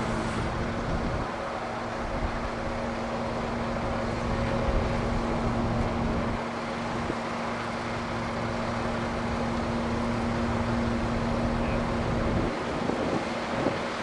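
Mobile crane's diesel engine running at a steady hum, with wind on the microphone. The hum drops away about twelve seconds in.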